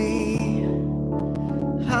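A man singing a worship song to keyboard accompaniment. A held sung note ends less than a second in, the keyboard chord sustains, and the voice comes back in near the end.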